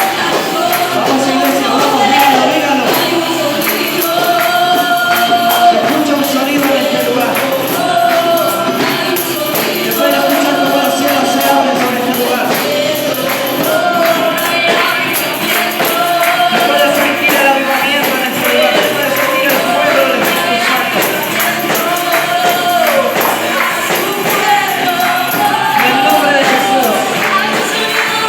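Christian worship song: voices singing a melody over a steady beat with bright jingling percussion.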